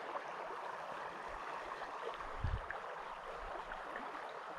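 Mountain creek water rushing steadily over the stream bed. A brief low bump sounds about halfway through.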